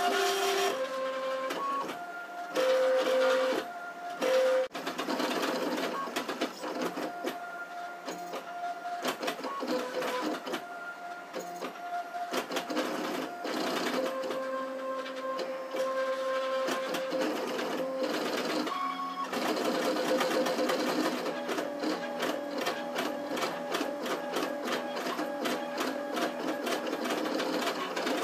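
Stepper motors of a Trinity Labs Aluminatus 3D printer, which drives its axes with lead screws instead of belts, whining as the print head lays down infill. The pitch jumps between steady tones every second or so as the head changes speed and direction. From about two-thirds of the way in it becomes a rapid chatter of short back-and-forth moves.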